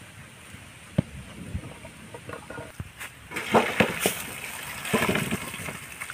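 Water being poured and splashed from a pan full of potatoes into a steel bowl, with the potatoes knocking against the metal. There are a few sharp knocks in the first three seconds, then two louder spells of splashing and clatter.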